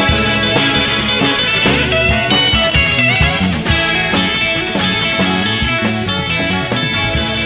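Instrumental passage of a psychedelic rock song: guitars and drum kit playing, with no singing. A lead line wavers in pitch about two to three seconds in.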